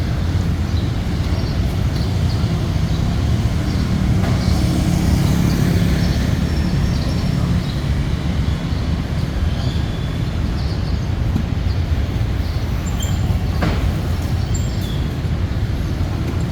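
A steady low rumble with a few faint, short ticks on top.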